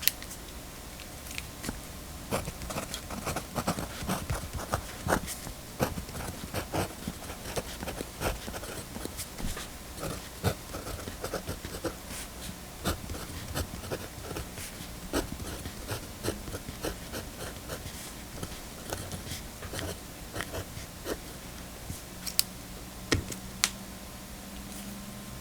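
Pentel PD345 mechanical pencil being written with and handled at a desk: irregular small clicks, taps and scratchy strokes of the lead on paper.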